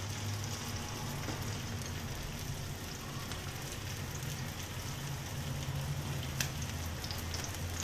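Diced onions sizzling in hot oil in a wok as they are sautéed: a steady sizzle over a low hum.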